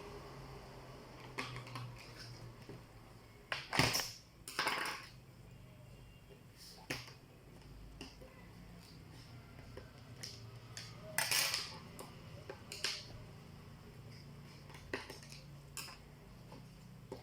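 Laptop parts and small tools being handled during disassembly: scattered sharp clicks and taps, with a few short scraping rasps, the loudest about four, five and eleven seconds in, over a steady low hum.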